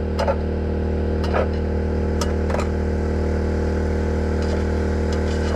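Portable generator engine running steadily with a low hum, with a few light clicks over it.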